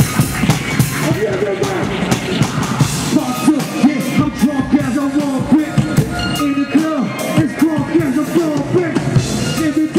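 Loud music with drums and a repeating melodic line, played over a concert sound system.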